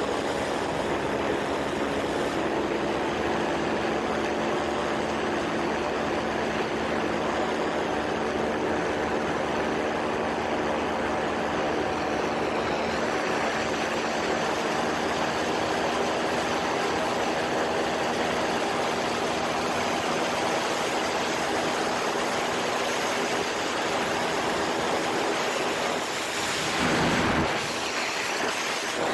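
Quicksilver ultralight's engine running steadily in flight, with air rushing over the microphone in the open cockpit. The sound dips and then turns briefly louder near the end.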